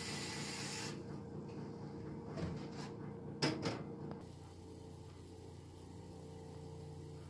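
Kitchen tap running into a metal saucepan, shut off about a second in. Then a few knocks and clanks as the pot is handled and set down on an electric coil burner. After that, only a faint steady hum.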